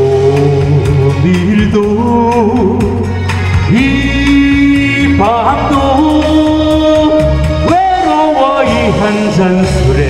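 A male singer sings a Korean popular song through a microphone over amplified band accompaniment, holding some notes with vibrato.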